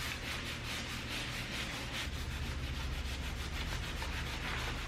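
Rubbing metal polish by hand onto a motorcycle's front fork tubes, a quick steady back-and-forth scrubbing with several strokes a second.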